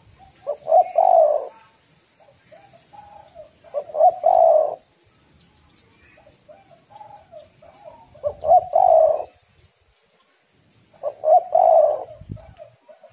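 Female spotted dove cooing: four loud coo phrases a few seconds apart, with softer coos between them.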